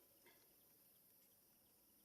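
Near silence: faint background hiss, with one soft tick near the start.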